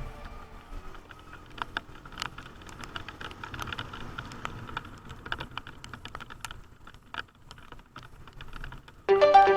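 Irregular light clicks and taps, a few a second, over a faint low rumble; music cuts back in near the end.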